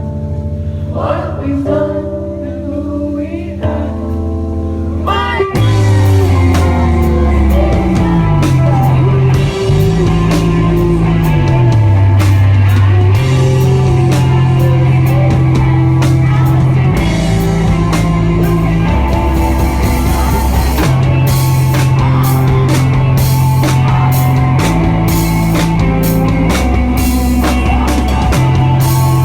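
Live rock band playing: a quieter, sparse opening, then about five and a half seconds in the full band comes in loud, with the bass sliding down in pitch and then holding low notes under drums. The cymbals get busier in the second half.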